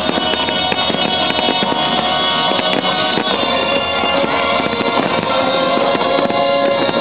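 Aerial fireworks bursting and crackling, with loud music playing steadily throughout.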